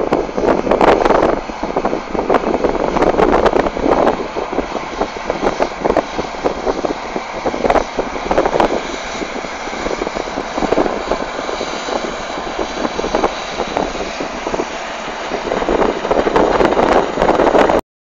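New Holland TX68 Plus combine harvester running while cutting wheat, heavily buffeted by wind on the microphone in irregular gusts. The sound cuts off suddenly near the end.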